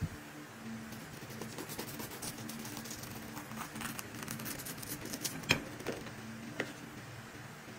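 A knife sawing through the crisp, flaky puff-pastry crust of a beef Wellington: a run of small crackles and crunches, with one sharper click about five and a half seconds in. A steady low hum runs underneath.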